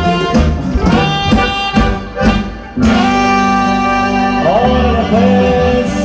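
Live band music played loud through a stage sound system. About two and a half seconds in it breaks off briefly, then comes back with held melody notes, some of them bending in pitch.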